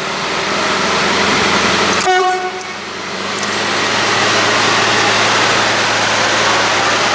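Train sounding a short horn toot about two seconds in, then its engine hum and running noise growing louder as it gets under way.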